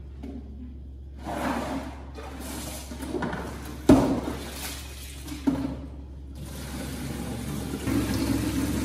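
Water splashing in a red plastic basin, with a sharp knock about four seconds in and a smaller one a second and a half later. From about six seconds in, a steady stream of tap water runs through a hose into the basin, getting louder near the end.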